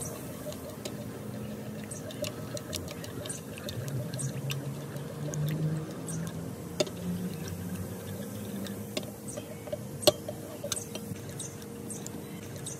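Metal spoon stirring flour and water into a paste in a ceramic bowl, clinking and scraping against the bowl in irregular light ticks, with two louder clinks partway through.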